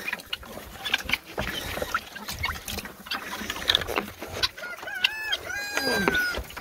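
Chickens clucking, with a rooster crowing in several parts about five seconds in, its last note long and slightly falling. Scattered knocks and rustles come from a rubber bucket being carried.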